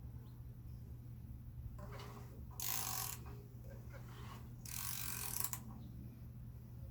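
Wrench turning a Honda B20 engine over by hand at the crankshaft, two short ratcheting bursts about three and five seconds in. It is the engine being rotated a full turn to check the new timing belt's timing and that the valves clear the pistons.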